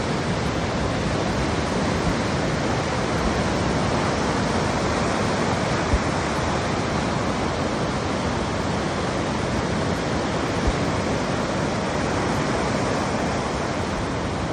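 Ocean surf breaking and washing onto the beach, a steady rushing wash, with two brief low thumps, about six and eleven seconds in.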